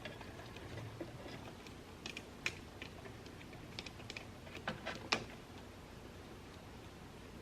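Light clicks and taps of small electrical parts and wires being handled, scattered through the middle few seconds, the sharpest near the middle and about five seconds in.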